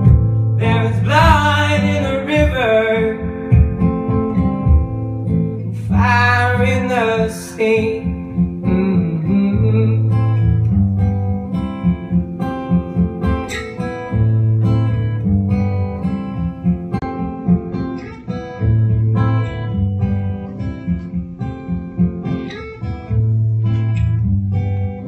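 Acoustic guitar played live in an instrumental break, with two long sung phrases by the singer in the first eight seconds, then the guitar alone with a repeating pattern of low bass notes.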